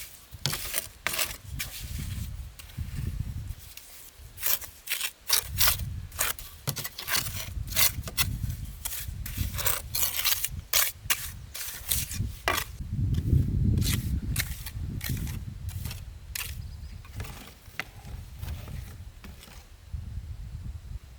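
Hand construction work: a run of sharp, irregular clicks and knocks, densest in the middle, with low rumbling swells between them, the strongest about two-thirds of the way through.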